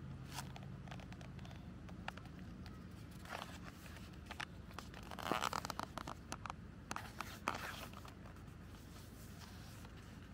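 Packaging being handled and torn open: scattered clicks and crinkling, with a denser tearing rustle about five seconds in and a sharp snap about two seconds later.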